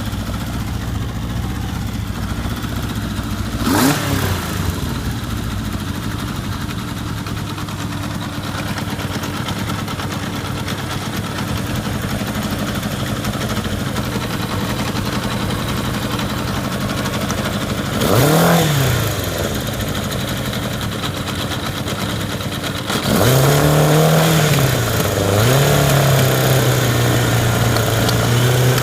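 An engine idling steadily, revved briefly about four seconds in and again around eighteen seconds, then revved twice more near twenty-three seconds and left running at a higher, louder idle.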